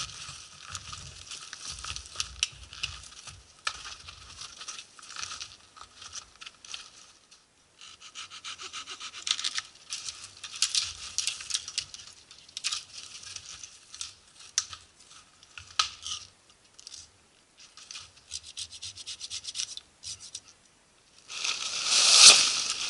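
Snowshoes crunching and scraping in snow in irregular steps as a person moves about on foot. Near the end, a loud rustle of fabric as the rolled sleeping-bag bundle is handled.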